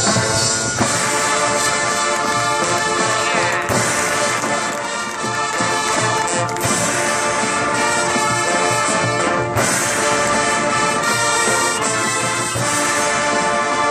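Marching band playing, brass leading with drums underneath.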